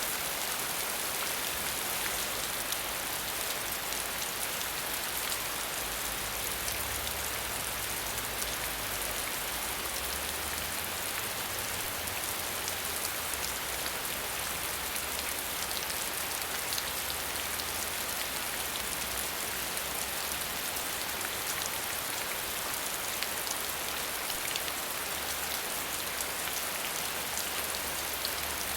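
Steady hiss of falling water, with many fine splashing drops and no change in level.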